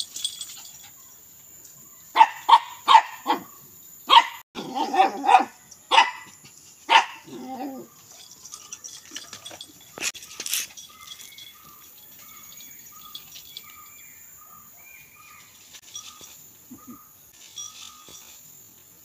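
Shih Tzu barking in a rapid run of sharp barks for several seconds. The barks then stop, leaving a faint short high note that repeats about twice a second.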